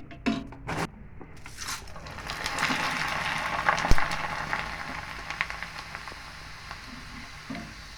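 Hot oil sizzling as a batch of dried corn snack pellets fries and puffs up: the hiss swells about two seconds in and then slowly dies away. A few clicks come before it, and a sharp knock about four seconds in.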